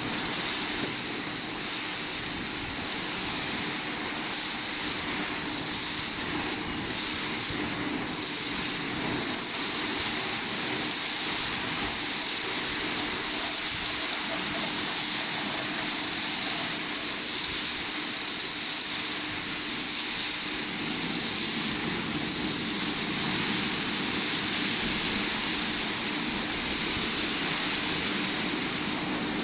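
Rollover car wash gantry's four top-mounted blower fans running in the drying stage: a steady loud rush of air with a constant motor hum underneath, growing a little stronger about a second in.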